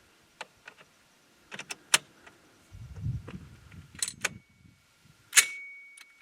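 A run of sharp clicks and clanks with a low rumble in the middle, then one loud hit about five seconds in that rings on in a steady high tone.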